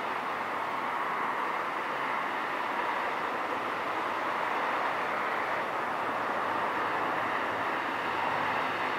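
Steady, unbroken rushing noise with no distinct events, with a faint low rumble joining in the second half.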